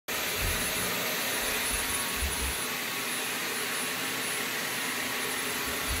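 Vacuum cleaner running: a steady noise with a thin high whine on top, and a few low bumps.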